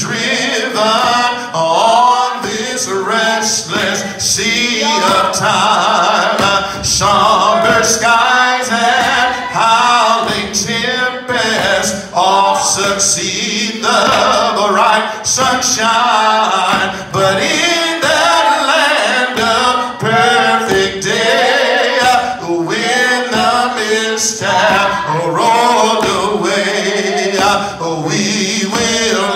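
A man singing a hymn into a microphone, with several long held notes.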